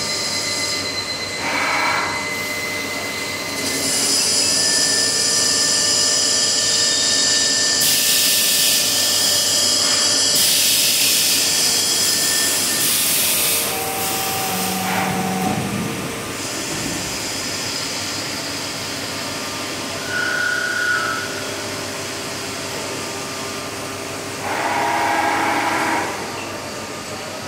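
Machine tools turning camshafts: a steady motor hum with several high, steady whines, and a loud hissing rush from about 8 to 13 seconds in. Shorter bursts of noise come near the start, about 20 seconds in, and near the end.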